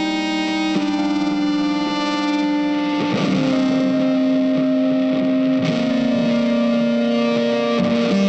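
Background music led by a guitar with effects and distortion, holding long sustained notes that change every few seconds.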